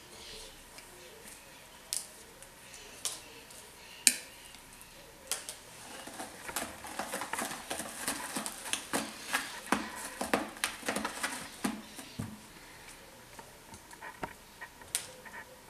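A cat's claws scratching a sisal-rope scratching post: a dense run of quick, irregular scratching strokes for several seconds in the middle, with a few sharp single clicks before and after.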